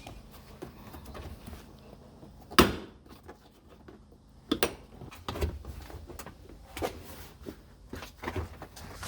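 Plastic trim pieces and wiring being handled in a car's rear cargo area: a scattered series of knocks and clicks, the loudest about two and a half seconds in.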